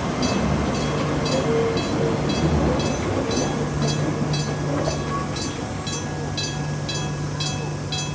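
An Enoden (Enoshima Electric Railway) train running, with a steady low hum, while a level crossing warning bell rings steadily about twice a second.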